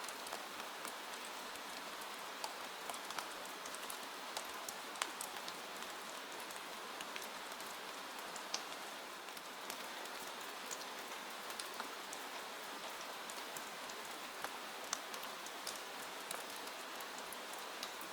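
Steady rain falling, an even hiss with scattered sharp ticks of drops striking surfaces.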